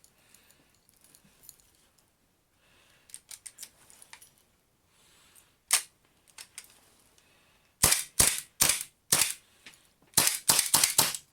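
Gas blowback airsoft Colt 1911 pistol in a carbine kit firing semi-automatic shots, each a sharp crack as the gas cycles the slide: four shots a little under half a second apart, then a faster run of about five near the end. Before them come faint handling clicks and one sharp click about halfway.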